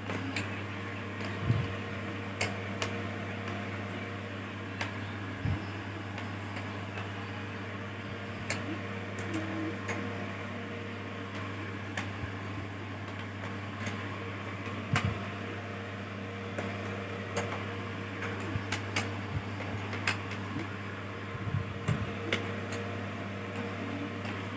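Screwdriver undoing the screws of a laptop's bottom case: scattered light clicks and taps of the tool and screws over a steady low hum.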